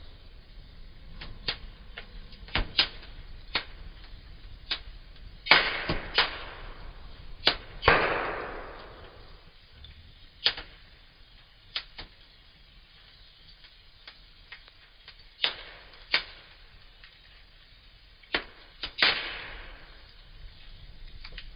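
Wood fire crackling in a fireplace: irregular sharp pops and snaps, with a few louder cracks that trail off in a brief hiss.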